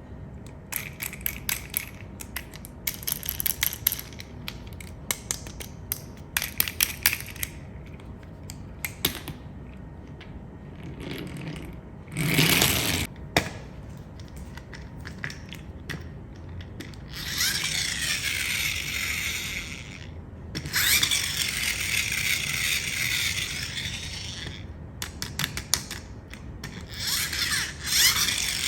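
Rapid mechanical clicking and ratcheting rattles, then two stretches of a harsh, whirring scrape lasting a few seconds each.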